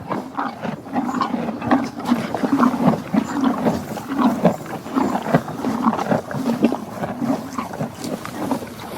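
Horse sounds: a busy, unbroken run of short, low, rough animal sounds mixed with many clicks.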